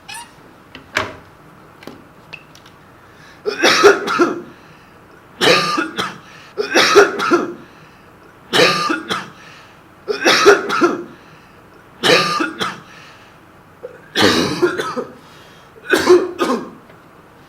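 A person coughing in repeated fits: about eight bouts roughly two seconds apart, each of two or three coughs, after a few faint clicks in the first seconds.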